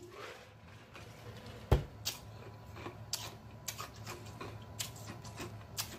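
A man drinking from a large cup and swallowing, followed by a scatter of sharp, wet mouth clicks and lip smacks, with one louder knock a little under two seconds in.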